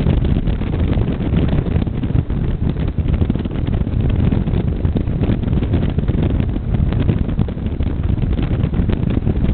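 Motorcycle cruising at steady road speed: heavy wind buffeting on the microphone over the low, steady drone of the engine.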